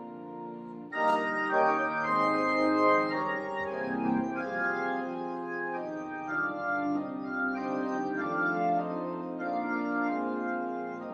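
Church organ playing held chords after the final blessing, with a louder chord coming in sharply about a second in.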